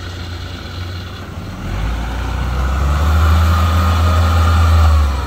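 Engine of a small rubber-tracked carrier hauling a full load of rice sacks, running steadily and growing clearly louder about two seconds in as it drives up close. The sound stops abruptly at the end.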